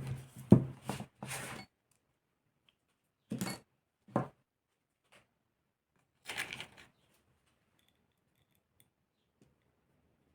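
Small metal engine parts and tools being handled on a workbench during disassembly: a quick run of knocks and scrapes, two brief clinks a few seconds later, then a longer scraping rustle.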